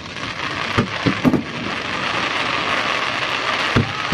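Aerial fireworks shells bursting overhead: a dense crackling hiss from the glittering stars grows louder after the first second, cut by a few sharp booms around a second in and another near the end.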